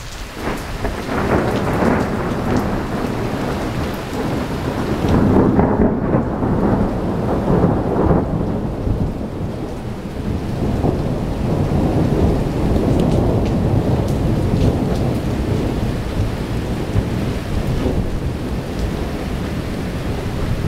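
A long roll of thunder over steady rain, swelling loudest several seconds in and then rolling on more evenly.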